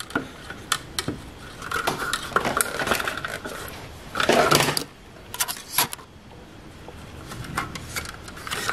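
Nylon zip ties being fed through and pulled tight around a 3D-printed plastic gear on a plastic filament spool. Scattered sharp plastic clicks and rubbing, with a louder scrape a little past four seconds in.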